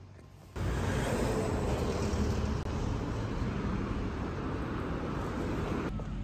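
Road traffic noise on a city street: a steady rush of passing cars that starts abruptly about half a second in and drops to a quieter hum near the end.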